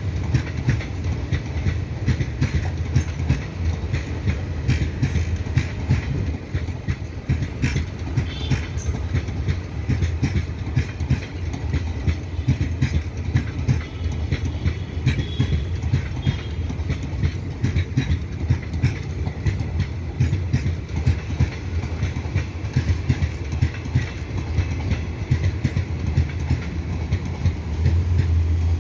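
Two WDM3A ALCO diesel locomotives working in tandem with their deep, continuous chugging, under a running train's steady clicks of wheels over rail joints.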